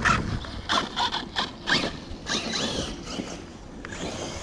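Electric RC car driven on dirt in short throttle bursts: quick whines from the motor and drivetrain with the tyres scrabbling, and a brief rising whine about two seconds in.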